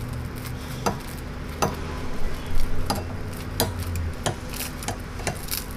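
Kitchen scissors cutting through toasted bread: a string of about eight sharp, crunchy snips at uneven intervals, over a low steady hum.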